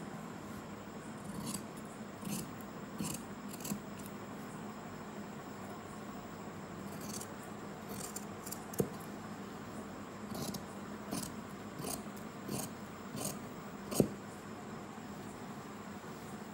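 Large tailor's shears snipping through cloth in short cuts about 0.7 s apart, in two runs broken by a pause of a few seconds. Two sharper clicks stand out, the louder one near the end.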